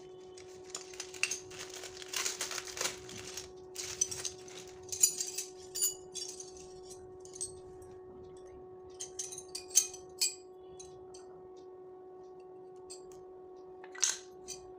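Plastic packaging crinkling as a wind chime is pulled from its bag, then light clinks and taps of the metal chime tubes knocking together and being set down on a stone floor, some with a brief high ting; one louder clink near the end.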